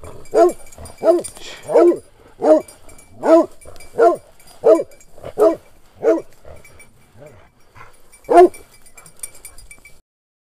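Hunting dog barking at a wild boar: a steady run of loud barks, about three every two seconds, then a short pause and one last bark. The sound cuts off near the end.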